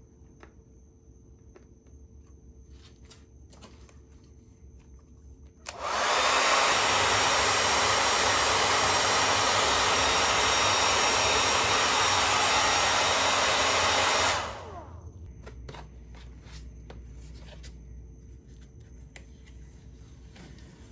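Electric heat gun blowing steadily for about eight seconds, switched on about six seconds in and cut off about fourteen seconds in, used to heat a decal onto the motorcycle's plastic panel. Faint scattered ticks and rubbing from hands working the panel come before and after it.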